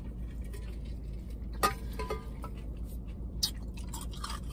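A person drinking in gulps from a large insulated tumbler, with small wet mouth sounds and a couple of sharp clicks, over a steady low hum.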